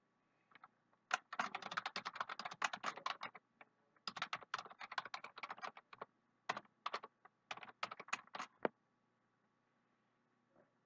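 Typing on a computer keyboard: a fast run of key clicks starting about a second in, a short pause, then slower, sparser keystrokes that stop a couple of seconds before the end.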